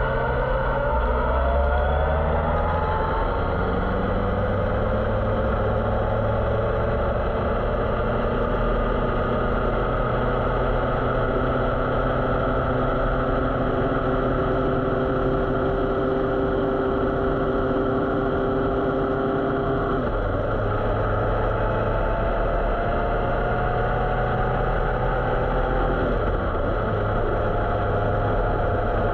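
Motorcycle engine running under way: its note climbs over the first few seconds, then holds steady, with sudden changes in the engine note about 20 and 26 seconds in.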